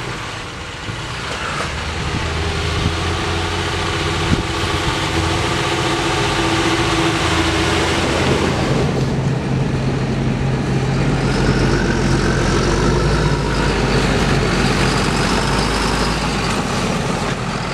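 Diesel engines of a John Deere tractor with a silage trailer and a telehandler running steadily. About halfway through, a deeper, louder engine note comes in and holds, with a faint wavering whine above it.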